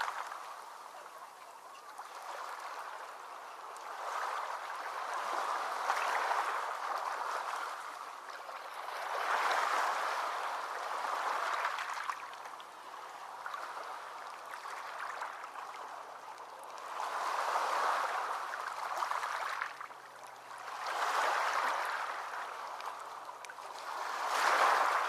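Sea waves breaking and washing in, a hissing surf that swells and fades every few seconds, with the loudest surge near the end.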